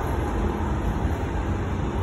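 Steady low noise of a train of passenger coaches rolling along the track.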